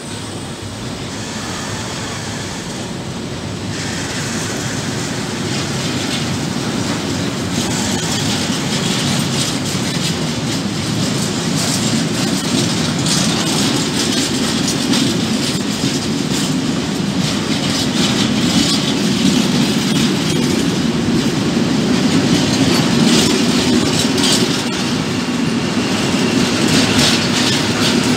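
Freight wagons rolling past at close range: steady noise of steel wheels on rails with repeated clicks over the joints, growing louder over the first several seconds.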